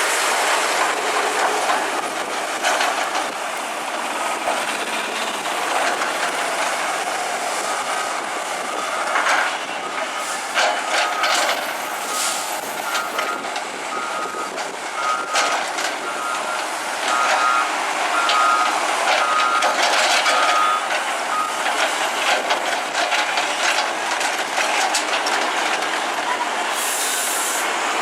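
Heavy construction machinery working: a diesel engine running under a constant noise of scraping and clanking, with a backup alarm beeping in short evenly spaced pulses for a stretch in the middle.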